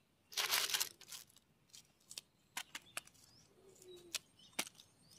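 Kitchen knife cutting spring onions held in the hand: a brief rustle near the start, then scattered crisp snaps and clicks as the blade cuts through the stalks.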